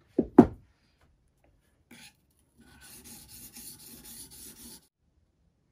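Two sharp knocks a fraction of a second apart as the whetstone in its wooden holder is set down on the wooden worktop. From about halfway, a couple of seconds of quick, regular scraping as a Mora knife blade is rubbed back and forth on the wet whetstone to restore its broken point.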